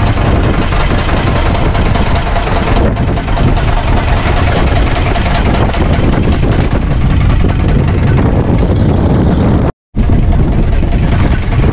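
Strong wind buffeting the microphone in a loud, steady rumble, over a small fishing boat's engine running. The sound cuts out for an instant about ten seconds in.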